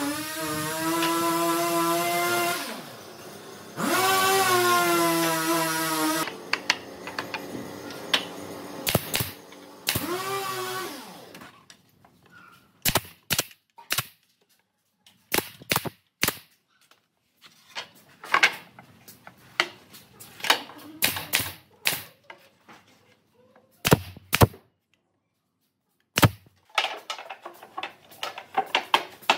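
An electric power tool whines in runs of a few seconds, speeding up and slowing down. Then a nail gun fires a string of sharp shots into pine boards, some singly and some in quick pairs.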